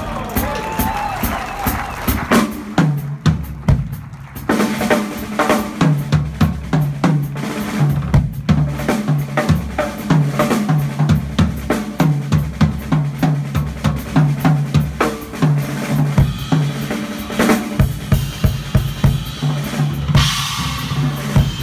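Live band music led by a drum kit: kick and snare beating a steady groove over a repeating low bass figure, with a cymbal wash near the end.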